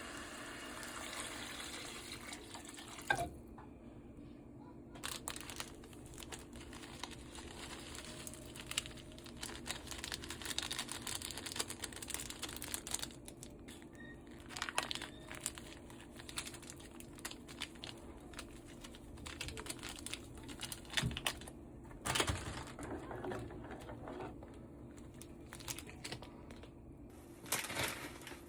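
Crinkling and rustling handling noises with scattered clicks and knocks, over a steady low hum.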